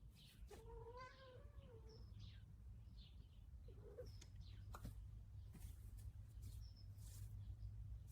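A cat meowing faintly: one long, wavering meow about half a second in, followed by a few short high squeaks.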